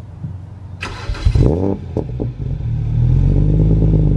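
Single-turbo BMW N54 straight-six starting through a VRSF 3.5-inch exhaust with the street muffler: it catches about a second in, flares up in revs and drops back, then settles into a loud, steady idle from about three seconds on.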